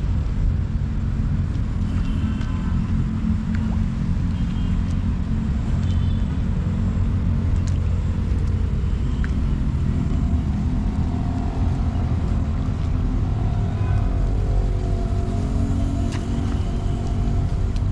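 Steady low rumble of city road traffic, with faint short higher tones now and then over it.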